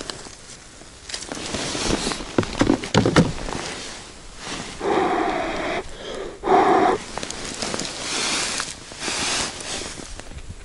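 Crunching snow, scraping and rustling of winter clothing as an ice angler shifts around at the hole, with two short creaking sounds about five and six and a half seconds in, and some swishing near the end.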